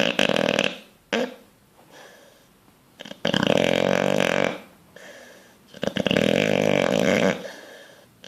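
Sleeping bulldog snoring: loud, rasping snores, one running into the start, a short snort about a second in, then two long snores about three and six seconds in, with quieter breaths between.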